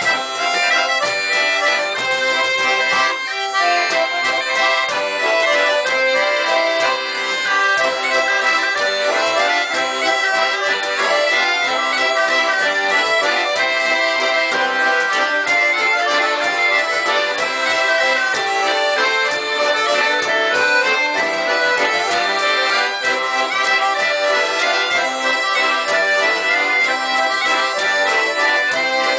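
Accordion ensemble, a chromatic accordion and several diatonic button accordions with a violin, playing a Parisian musette waltz at a steady level.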